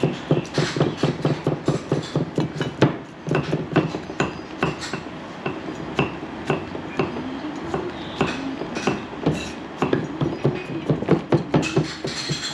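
Cleavers chopping garlic on thick round wooden chopping boards: quick, irregular knocks, several a second, from two people chopping at once.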